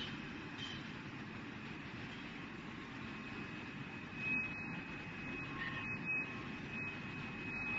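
Steady running noise of an air-bubble strawberry washing machine, its tank water churning, with a thin high whine running through it. Two brief louder bumps about four and six seconds in.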